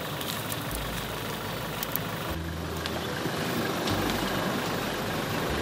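Toyota Innova's engine running at low revs, a steady hum with a few faint clicks, growing slightly louder from about two and a half seconds in as the car moves off down the dirt track.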